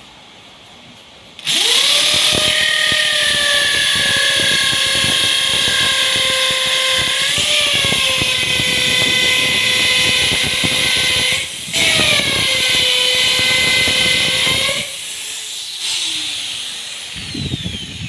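Handheld electric drill boring into a wooden bench, running with a steady high whine that sags briefly under load. It stops for a moment, starts again, then cuts off and winds down with falling pitch, followed by a few knocks near the end.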